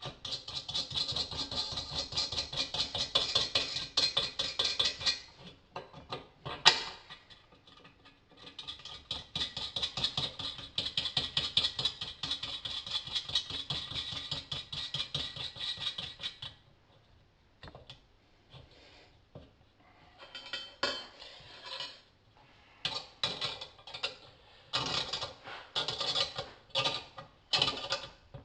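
Ratchet spanner clicking in fast runs as the bolts of an exhaust-pipe clamp are wound in. There are two long stretches of rapid clicking with one sharp knock between them, then shorter, spaced bursts of clicks near the end.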